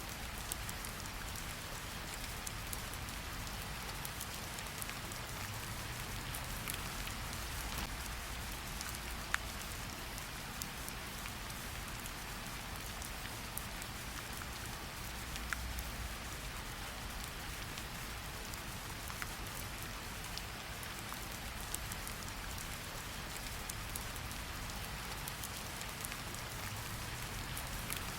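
Steady rain hiss with scattered sharp crackles and pops from a wood fire, the loudest pop about nine seconds in.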